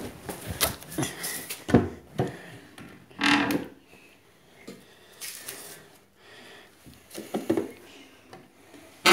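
Scattered knocks, bumps and rubbing against a cabinet and other furniture as things are handled, with a sharp knock a little under two seconds in and a longer scraping burst about three seconds in.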